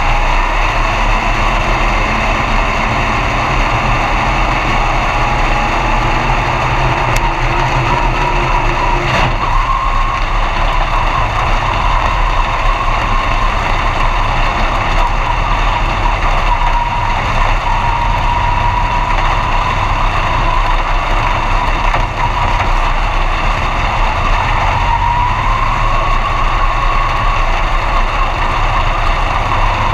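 B-Mod dirt track race car's engine running steadily, heard from inside the cockpit, its pitch wavering only a little.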